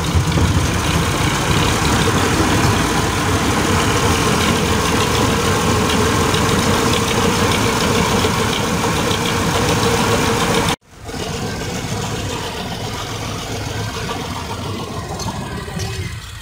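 Tractor diesel engine running steadily under load, belt-driving a mustard oil expeller. The sound breaks off abruptly about eleven seconds in and carries on more quietly.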